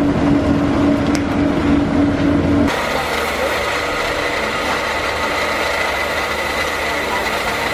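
Steady machine drone that changes abruptly about two and a half seconds in to a different steady motor drone with a thin high whine and a hiss: an electric pedestal fan running while rice is poured in front of it to blow away the chaff.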